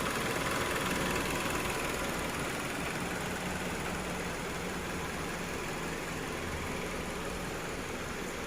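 Kia car engine idling steadily.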